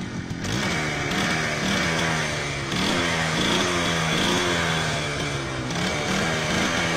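Small motorcycle engine revved in repeated short blips as the throttle grip is twisted, its pitch rising and dropping back again and again.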